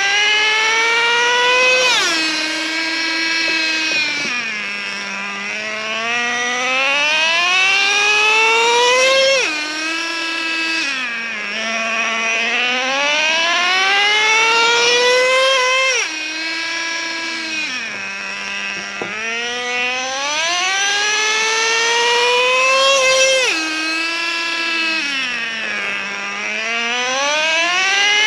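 Traxxas Revo 3.3's two-stroke nitro engine running during break-in, its pitch climbing steadily over several seconds and then dropping sharply, four times in a row, as the truck speeds up and eases off.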